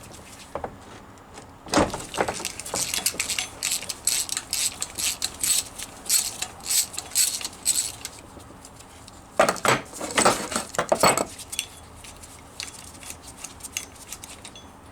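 Socket and ratchet on a 9/16 in bolt of a Rover P6 differential cover plate, clicking in two runs of quick metallic ticks as the bolt is wound out. The first run lasts several seconds and the second is about two seconds.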